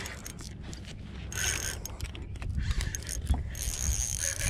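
Spinning reel's drag buzzing in two spurts, about a second in and again near the end, as a big hooked fish pulls line off against it.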